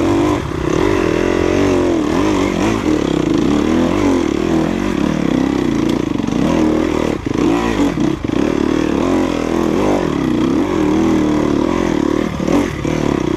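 Enduro dirt bike engine running under load, its pitch rising and falling over and over as the throttle is worked, with brief dips about seven and eight seconds in. The engine is overheating, which the rider calls boiling.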